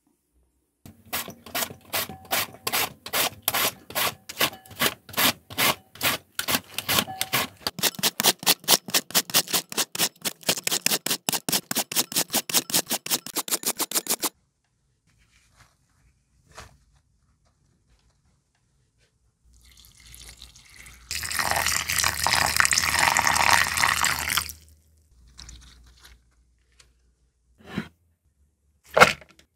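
Knife shredding red cabbage on a wooden cutting board: a long run of quick, even cuts, about four a second and quickening, each knocking through to the board. After a pause there are a few seconds of rustling as the shredded cabbage is handled, then a few scattered knocks near the end.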